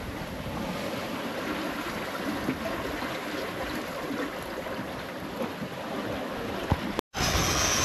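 Sea water rushing and splashing past a sailing yacht's hull underway, a steady wash. It cuts off abruptly about seven seconds in, and a louder steady noise follows.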